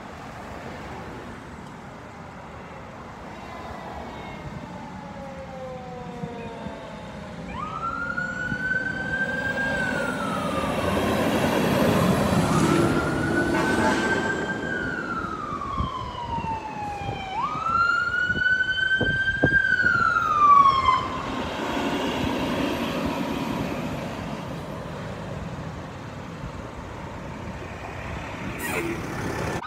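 Fire truck siren wailing as the trucks pass. It goes in three slow cycles, each a quick rise and then a long falling glide, over the rising engine and road noise of the passing vehicles, which is loudest about two-thirds of the way through.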